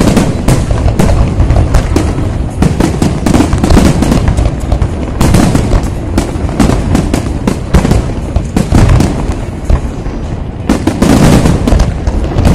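Aerial fireworks shells bursting in rapid, overlapping succession: a dense run of loud bangs with low rumbling between them, several reports a second.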